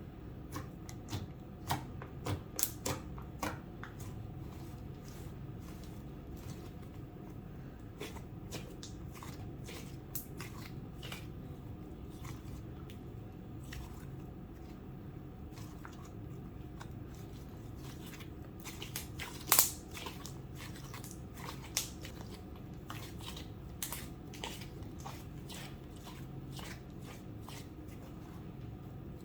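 Slime being squished and folded by hand, giving irregular sticky clicks and pops, with one much louder pop about two-thirds of the way through, over a low steady hum.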